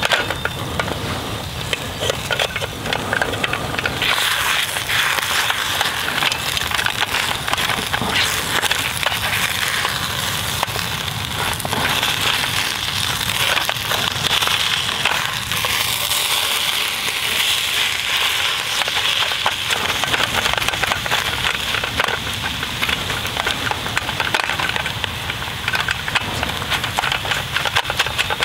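Eggs and sliced ham sizzling and crackling in a carbon steel skillet on an alcohol stove, with a spatula scraping and stirring through them.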